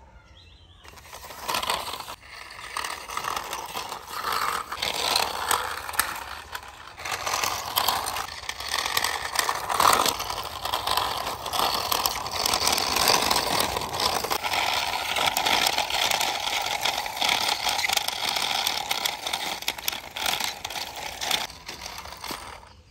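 Plastic wheels of a toy sedan car rolling and scraping along a rough concrete wall top as it is pushed by hand: a continuous gritty rattle that swells and fades. It starts about a second in and stops shortly before the end.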